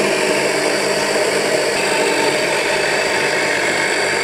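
Mahlkönig commercial burr coffee grinder running steadily, its motor and burrs grinding roasted coffee beans.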